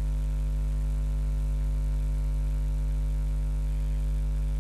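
Steady low electrical hum with a buzz of higher overtones, unchanging in pitch and level.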